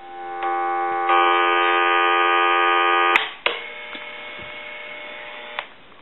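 Steady, buzzy telephone line tone heard through the Harris TS22 buttset's speaker. It grows louder about a second in and cuts off with a click about three seconds in. A quieter steady tone follows and ends with another click near the end.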